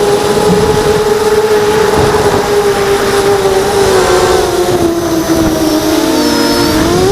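Hexacopter drone's electric motors and propellers whining at a steady pitch. From about four seconds in, the whine splits into several tones that dip lower and then rise again near the end as the motor speeds change.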